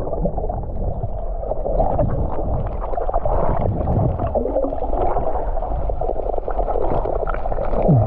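Underwater sound from a snorkeler's submerged camera: a muffled low rush of water with bubbling and many small clicks, the higher sounds cut off once below the surface.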